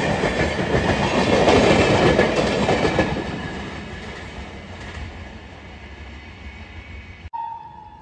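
Rajdhani Express LHB coaches rushing past at speed, wheels clattering over the rail joints, the sound fading as the last coach, a luggage-brake and generator car, draws away. A little after seven seconds it cuts off abruptly, leaving a faint steady tone.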